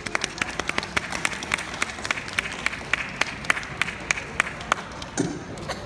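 Audience applause in a hall, with one nearby person clapping sharply and steadily about three times a second; it dies away about five seconds in.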